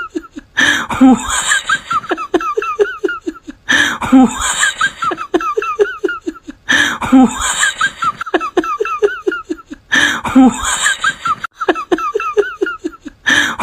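Laughter: the same quick ha-ha-ha burst repeating about every three seconds, like a looped laugh sound effect.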